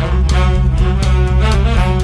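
Music with a steady beat, about four hits a second, over a strong bass line.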